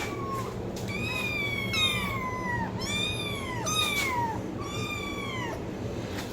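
A cat meowing repeatedly: about five high meows in quick succession, each arching up and falling away.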